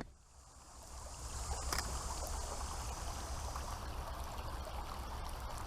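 Creek water trickling and babbling steadily, fading in after a near-silent start.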